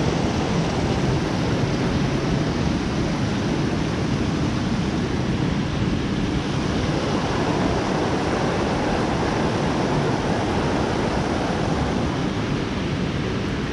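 Mountain creek rushing over rocks and fallen logs, a steady wash of running water.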